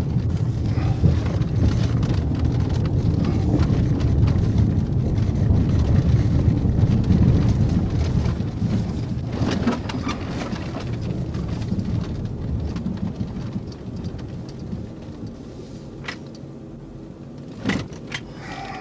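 Police car rolling slowly over a gravel drive and a rough grass field: a low rumble of tyres and suspension that fades as the car slows to a stop. A couple of sharp clicks near the end.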